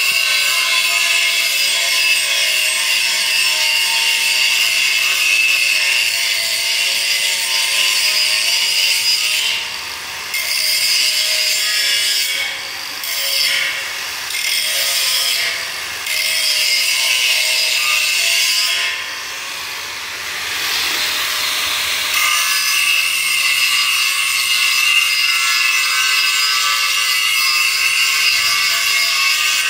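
Handheld electric angle grinder grinding a steel frame, throwing sparks: a steady high-pitched whine with a rough grinding hiss. It eases off and comes back several times between about ten and twenty-two seconds in.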